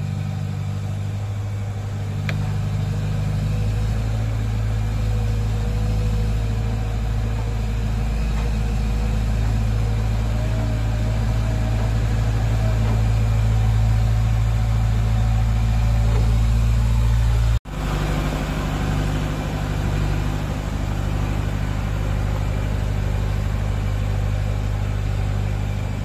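Diesel engine of an ACE mobile crane running steadily close by, its low hum swelling slightly, with a brief break about two-thirds of the way through.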